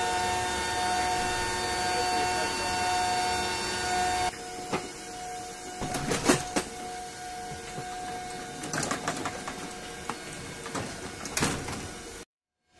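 Steady machine hum with several held tones, the running noise inside an MC-130J's cargo hold. About four seconds in it drops to a quieter hum with a few clattering knocks as a large aircraft tire is handled and rolled over the cargo floor.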